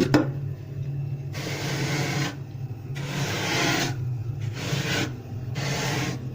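Freezer frost being scraped, four rasping strokes each lasting about a second, over a low steady hum.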